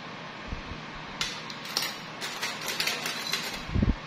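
Philippine one-peso coins clinking together in irregular little clusters as they are handled and sorted by hand, with a soft thump near the end.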